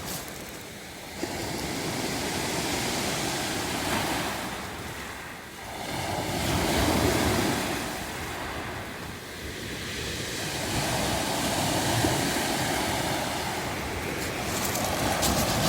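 Waves washing in and draining back over a beach of round pebbles, a hissing rush of water through the stones that swells and falls away every five seconds or so. Sharp clattering of the pebbles starts near the end.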